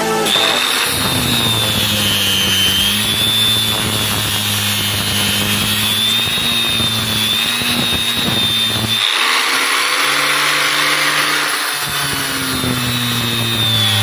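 Angle grinder running with its disc grinding metal on a washing machine motor, throwing sparks. A steady high whine that wavers in pitch as the disc bites, over a harsh grinding hiss that grows harsher about two-thirds of the way through.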